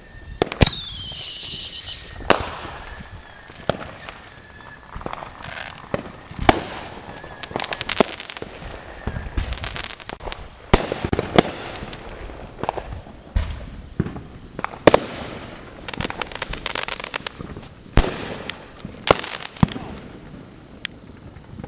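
Consumer fireworks going off: a falling whistle starts about half a second in, then a long run of sharp bangs and crackling bursts, one every second or two.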